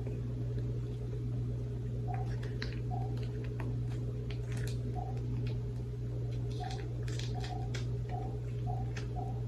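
Soft squishing and light clicks of a packaged raw salmon fillet being cut open and handled, over a steady low hum.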